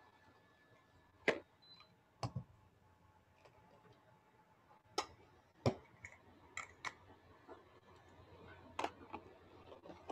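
Faint, irregular clicks and knocks, about eight of them spread over several seconds, from a camera and lens being handled during a lens change.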